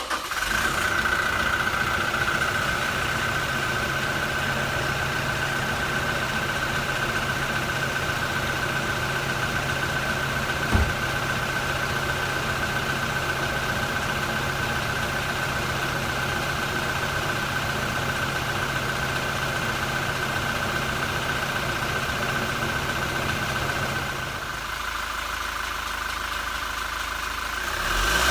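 Toyota Innova's 2GD 2.4-litre four-cylinder turbodiesel idling just after a cold start, with a steady high whine over the diesel running. There is a single knock about a third of the way in, and the engine note drops slightly and changes about three-quarters through.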